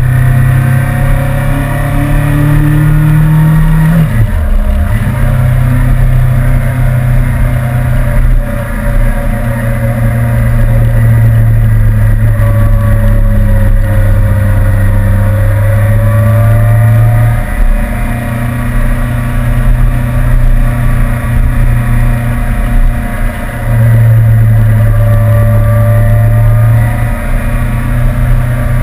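Suzuki GSR750's inline-four engine running steadily as the motorcycle rides along, over a steady rush of wind and road noise. About four seconds in the engine note dips sharply and comes straight back. Past the middle it drops away for several seconds, then picks up again, with a shorter drop near the end.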